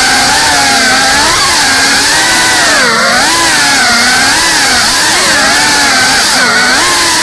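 GEPRC Cinelog 35 cinewhoop FPV quadcopter's ducted propellers and brushless motors buzzing in flight, the pitch swinging up and down constantly as the throttle changes.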